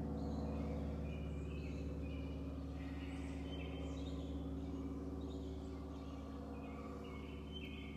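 Small birds chirping in the surrounding trees, short high calls repeated over and over, over a steady low hum.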